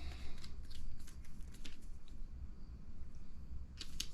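Scattered light clicks and rustling from small buggy-kit parts and tools being handled during assembly, over a faint low hum.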